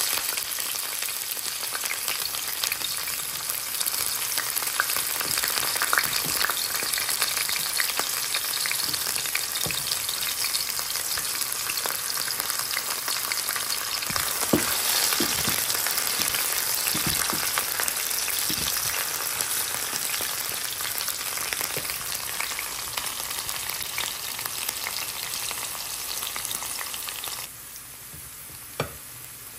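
Sliced onions, freshly added to hot oil in a stainless steel skillet, sizzling steadily as they fry. A few knocks and scrapes of a wooden spatula stirring the pan come around the middle. The sizzle drops abruptly quieter near the end, followed by a single knock.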